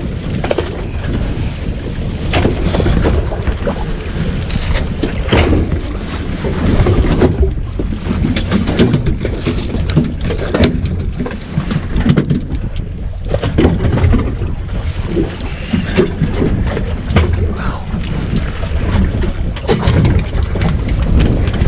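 Wind buffeting the microphone aboard a small fishing boat, a steady low rumble, with scattered knocks and clatter throughout.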